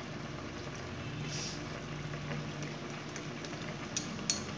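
Mango slices in sugar syrup simmering in an aluminium pot, a steady bubbling hiss with a low hum under it. Near the end, a few sharp clinks as a small glass jar of food colour taps against a metal spoon.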